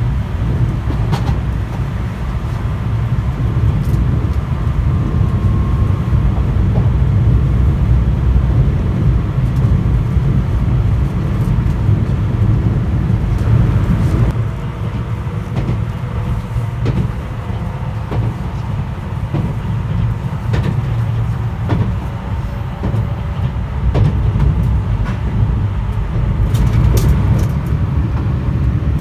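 Limited express Inaho train running, heard from inside the passenger car: a steady low rumble with a few short clicks from the wheels and track.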